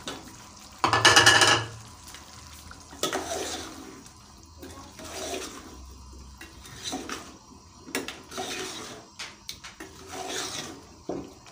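Long steel spoon stirring potato chunks through thick curry in an aluminium pot: wet sloshing strokes about once a second, with the spoon clinking and scraping against the pot, the loudest scrape about a second in.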